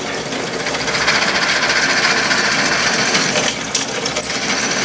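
Drill press boring a 27/64-inch bit into a block of wood: a steady grinding of the cut over the motor's hum.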